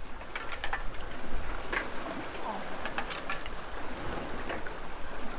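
Metal ladder knocking and clicking under a climber's hands and feet: a handful of sharp, separate knocks over a steady wash of water and wind.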